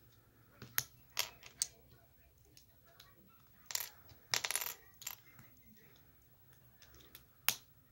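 Plastic Lego bricks and plates clicking as they are pressed together and loose pieces clattering as they are picked from the pile: a string of sharp clicks, with two short rattles about halfway through and one loud click near the end.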